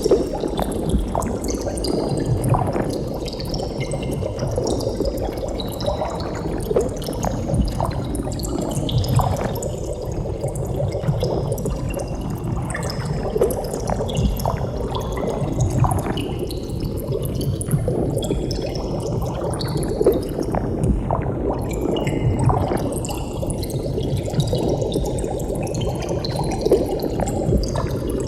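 Water bubbling continuously: a dense, irregular stream of small bubbles popping and gurgling, as of air rising through water.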